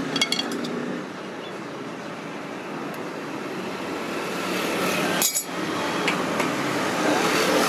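Farrier's steel hand tools working the nails of a freshly fitted horseshoe: a few light metal clinks near the start and one sharp click about five seconds in, over steady background noise.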